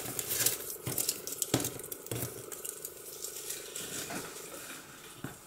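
Thin curled paper scrap strips rustling and crinkling as a hand gathers them up off a cutting mat, with small clicks and taps. The rustling is busiest at first and thins out after about two and a half seconds.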